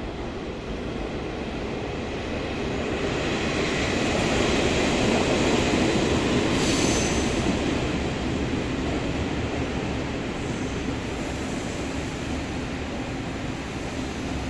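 Taiwan Railways Hello Kitty tourist train pulling into the station: a steady rumble of wheels on rail that grows louder over the first half and peaks about six seconds in. A brief high squeal comes near seven seconds, then the rumble eases as the train slows.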